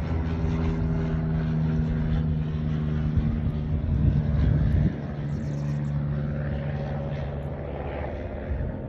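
An engine running steadily with a low, even hum, growing louder and rougher for about a second around four seconds in.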